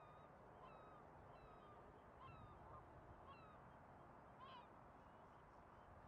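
Faint flock of geese honking: many short calls, overlapping and repeated, over a steady low background noise.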